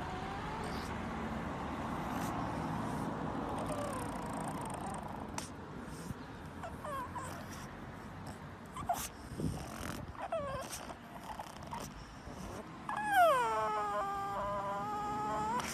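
Pug puppy whining: a few short, falling whimpers, then a louder, longer whine near the end that drops in pitch and holds.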